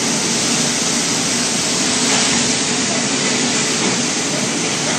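Steady hiss and hum of running assembly machinery, with faint steady tones and no separate strokes or clicks.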